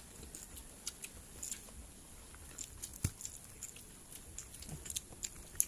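Eating by hand off banana leaves: scattered soft clicks and rustles of fingers in rice and on the leaf, with chewing. One sharper knock comes about three seconds in.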